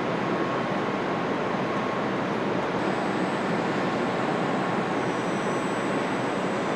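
Steady, even factory hall noise with no distinct events; a faint high whine joins about three seconds in.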